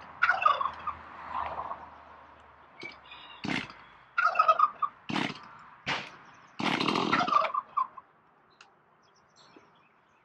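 A chainsaw being pull-started: a series of short, rasping yanks on the starter cord, spaced irregularly over about eight seconds, the longest near seven seconds in. The engine does not settle into running.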